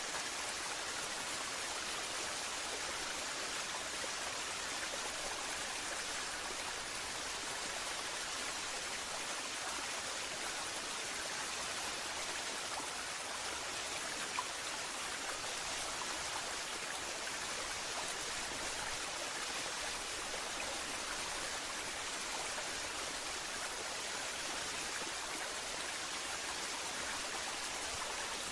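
Waterfall: a steady, even rush of falling water, weighted toward the high end with little low rumble.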